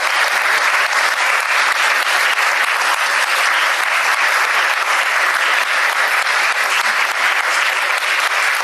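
An audience of several dozen people applauding steadily.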